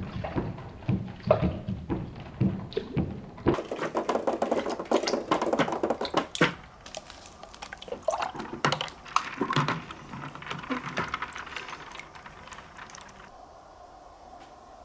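Marbles rolling and clattering down spiral water-slide tracks and dropping with plops and splashes into a water tank. The clatter thins out and dies away near the end.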